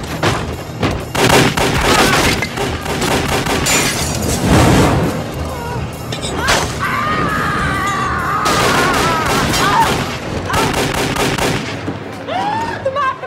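Movie action soundtrack: repeated revolver gunshots in two bursts, over dramatic music.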